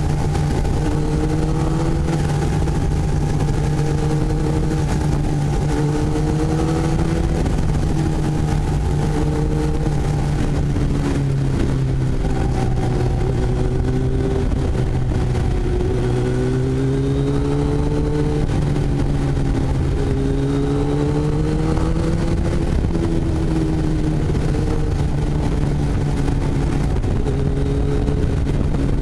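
Motorcycle engine running at a steady cruising pitch that rises and falls gently, under heavy wind rush on a helmet-mounted microphone while riding.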